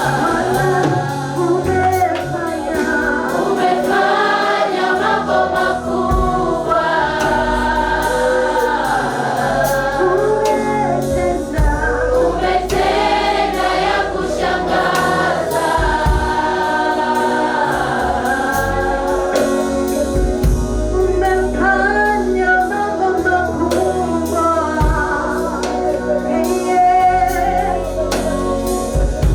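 Gospel choir singing a worship song over low sustained accompaniment, with a steady beat of sharp strokes.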